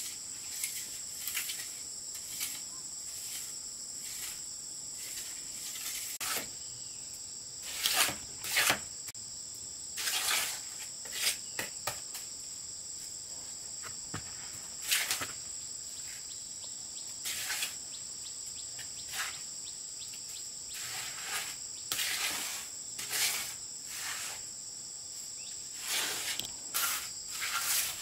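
Steady high-pitched chorus of insects, with scattered sharp knocks and clicks over it. The knocks are the loudest sounds, coming in small clusters and bunching up near the end.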